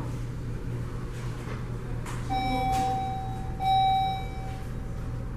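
An electronic chime sounding twice at the same pitch, each tone held about a second, the second louder and dying away, over a steady low hum.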